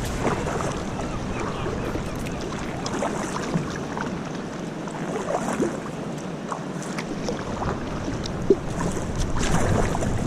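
River water rushing and lapping around a small plastic kayak moving through current, with scattered small splashes and ticks.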